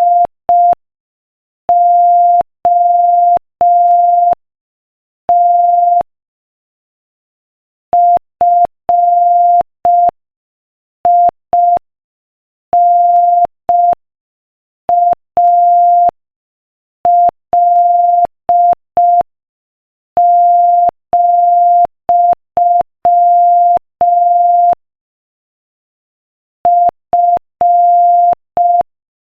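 Morse code practice tone at 5 words per minute: a single steady mid-pitched beep keyed on and off in short dits and longer dahs, with pauses between letters and words, spelling out the text of a quotation.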